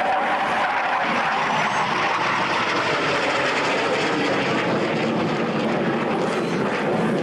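Military jet aircraft's engines running at display power as it flies past, a loud, steady rushing noise that sinks in pitch as it goes by.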